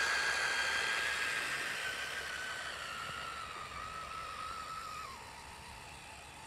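Brushed electric motor and gears of a 1/12-scale 6x6 RC truck driving on snow: a steady high whine that slowly sinks in pitch and fades as the truck drives away, stepping lower about five seconds in.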